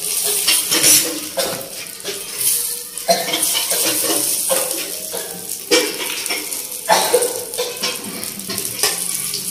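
Spiced eggplant halves sizzling in oil on a hot flat tawa griddle, with a steady hiss. Several sharp knocks and clinks come as the pieces are turned and a steel spoon works over the griddle.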